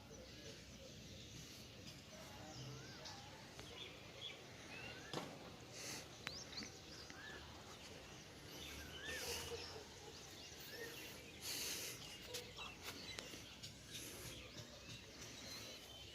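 Faint outdoor background with scattered short bird chirps, plus a few clicks and brief rustling bursts.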